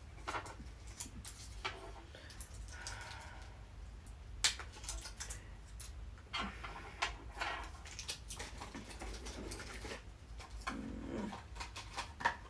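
Scattered clicks and knocks of tablets and a medicine box tray being handled, with a couple of short whine-like sounds.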